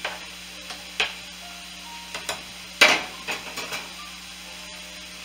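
Metal spoon knocking and scraping against a large aluminum pot while stirring lima beans and sausage, a series of separate clacks, with the loudest clack a little before three seconds in as the spoon is set down on the spoon rest.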